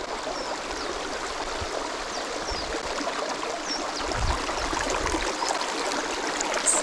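Shallow rocky river flowing and trickling over stones, a steady rushing, with a few short bird chirps over it.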